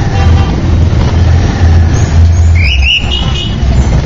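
Motorbike engine running at low speed in slow traffic, a steady low rumble. A few short high-pitched squeaks cut in about two and a half to three and a half seconds in.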